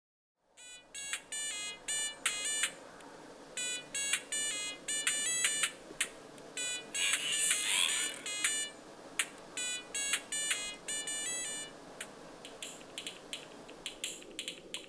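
Handheld electronic device beeping in quick runs of short bleeps, with pauses between runs and a brief rising chirp about seven seconds in.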